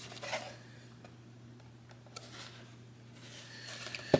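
Handling noise from a cardboard model-kit box: a short rustle, a small click, and a sharper knock near the end, over a steady low hum.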